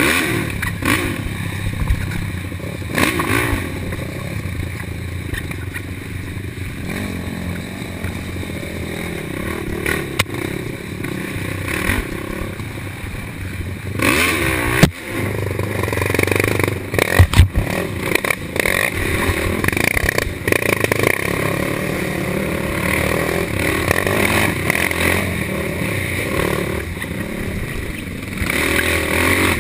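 Racing quad (ATV) engine running hard, revs rising and falling as it is ridden along a rough wooded trail, heard from the machine itself, with clattering and scraping from the bumps. A few sharp knocks come about halfway through.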